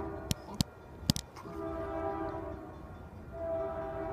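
A Union Pacific diesel locomotive's air horn sounds a steady chord in separate blasts: one ends just as the sound begins, another runs for over a second starting about a second in, and a third starts near the end. In the first gap come a few sharp knocks close to the microphone.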